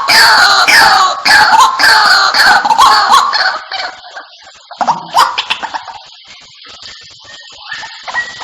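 White-breasted waterhen lure call: a loud, rapid series of harsh calls, each falling in pitch, about two a second. About three seconds in the calling breaks off, leaving fainter, scattered calls.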